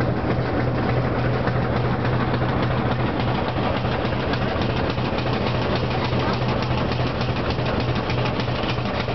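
Steam rack train running, heard from on board: a steady low drone from the locomotive and running gear, with a fast, even clatter over it.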